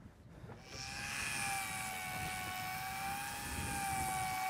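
Electric fishing reel's motor whining steadily as it winds in line, starting just under a second in.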